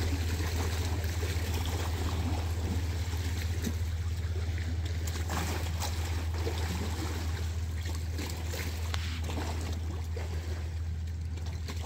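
A Bernese Mountain Dog wading and splashing in lake shallows, with small waves lapping on the stone slipway, over a steady low hum.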